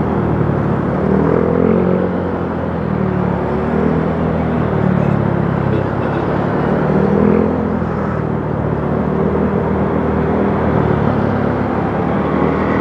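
Motorcycle engine running in slow traffic, its pitch rising and falling with the throttle, over a steady hiss of road and traffic noise.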